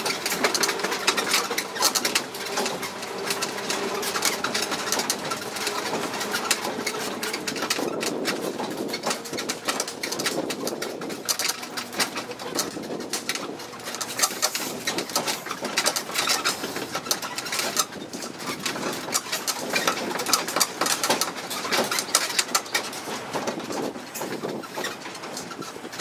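Ride in an open-sided tourist road train: the carriage rattles and clatters over the street, with many sharp clicks over the steady noise of the train on the move.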